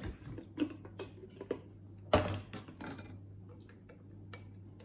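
Plastic blender jug handled and a spatula knocking and scraping inside it as blended pulp is worked out: scattered clicks and knocks, with one louder clatter about two seconds in.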